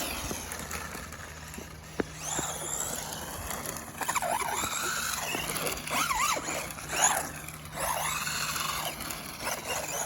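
Tamiya Grasshopper RC buggy's torque-tuned brushed electric motor whining. Its pitch dips and rises again and again as the throttle is worked, most busily from about four seconds in. There is a single sharp click about two seconds in.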